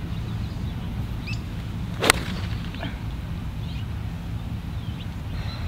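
A single sharp crack about two seconds in: a choked-down 6-iron striking a golf ball off the fairway, caught thin. A steady low outdoor rumble runs underneath.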